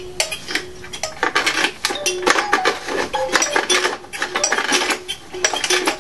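Homemade percussion instrument, an old metal tin with small children's music boxes tied onto it, struck rapidly: a jangly cacophony of metallic clinks mixed with short ringing music-box notes, a pretty junky sound. The strikes turn denser and louder about a second in.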